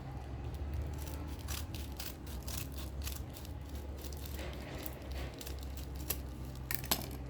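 Crinkling and crackling of taped packaging being pulled open by hand, in many short irregular clicks and rustles, over a steady low hum.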